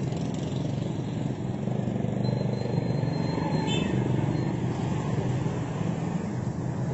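Steady low rumble of running engines and street traffic, with a hum that holds even throughout.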